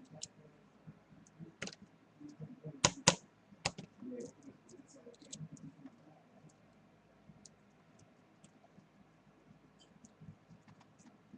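Small, sharp clicks and taps of a precision screwdriver and metal tools on a disassembled iPhone 3G as a tiny screw is backed out, with a few louder clicks between about two and four seconds in and faint ticks after.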